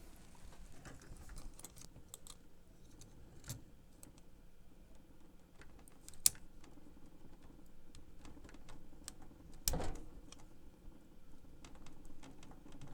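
Small metal clicks and scrapes of a tool prying a stubborn washer off the idler shaft in a cassette deck's transport: scattered light clicks, a sharp click about six seconds in and a duller knock near ten seconds.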